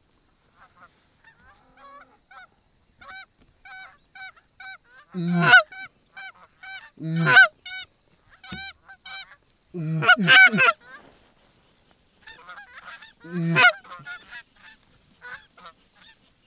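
Canada geese honking as a flock flies in: a steady run of faint, distant honks, two or three a second, broken four times by loud, close honks, once as a quick run of several calls.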